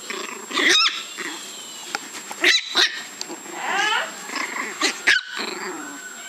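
Small puppy yapping: a string of short, high-pitched yips and barks, several of them over a few seconds.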